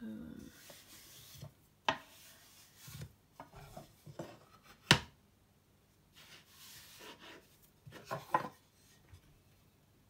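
Wooden cutting boards handled on a kitchen counter: stretches of rubbing and scraping broken by sharp wooden knocks. The loudest knock comes about halfway through, and a quick run of knocks follows near the end.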